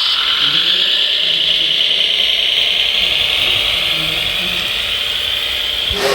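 Steady high-pitched whine of a radio-controlled construction model's electric motor running, drifting slightly lower in pitch and cutting off suddenly near the end.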